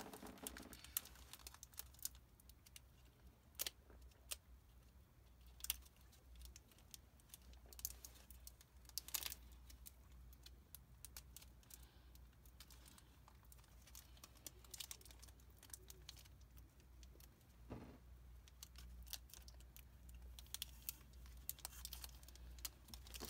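Near silence with scattered faint crinkling and a few sharp clicks from handling a foil Pokémon trading-card booster pack and cards.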